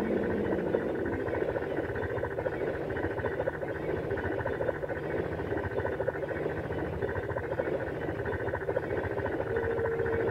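Experimental tape collage of radio and field recordings and samples: a dense, steady, grainy texture, with a single held tone coming in near the end.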